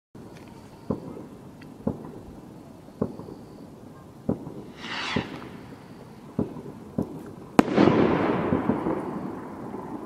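Firework rocket display: a run of sharp bangs about a second apart, a rocket whooshing up about five seconds in, then a loud bang followed by crackling and a long echoing rumble that dies away.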